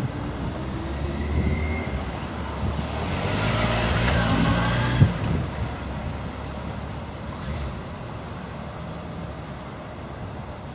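Road traffic: a car drives past, its engine and tyre noise swelling to a peak about four seconds in and then fading. A brief knock comes at the loudest point.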